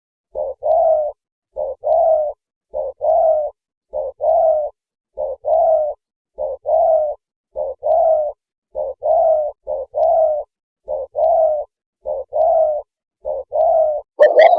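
Spotted dove cooing: a two-part coo, a short note followed by a longer one, repeated evenly about every second and a quarter, twelve times. Near the end a louder, longer call begins.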